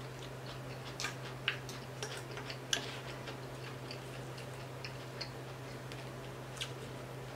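Quiet eating sounds: scattered small clicks and crackles as a crispy whole fried tilapia is picked apart by hand and chewed, over a steady low hum.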